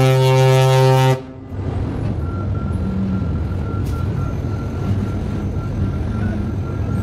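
A single loud, low horn blast, cutting off about a second in, followed by a steady low engine rumble.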